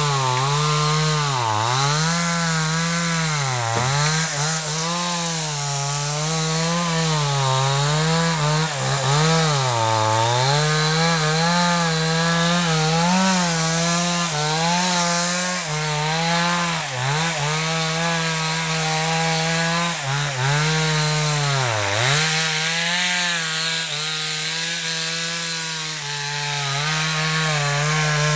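Two-stroke chainsaw cutting wood, its engine running at high revs with the pitch repeatedly dipping and recovering as the chain bites into the wood and bogs down.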